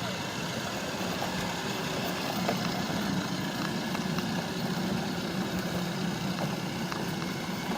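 A toddler's ride-on toy truck driving, with a steady motor hum.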